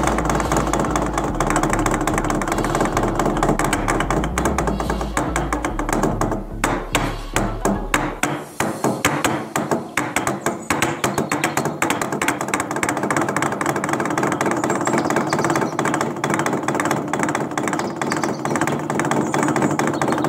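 Wooden log drum played by several beaters: a hollowed, carved log struck with heavy wooden poles in a fast, continuous rhythm of hollow wooden knocks. The strokes loosen and falter for a couple of seconds about six seconds in, then pick up again.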